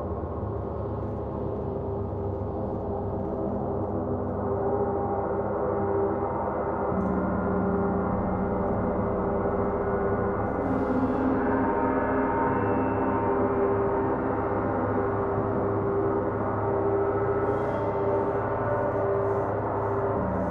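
Large gongs, among them a Paiste gong and a Mars planet gong, rolled with soft felt mallets: a dense, unbroken wash of overlapping ringing tones. The low notes change about a third of the way in, again about halfway, and once more near the end.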